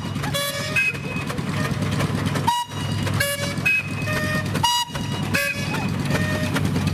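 A steam traction engine running with a steady low rumble, under a string of short tooting notes that change in pitch and repeat over and over.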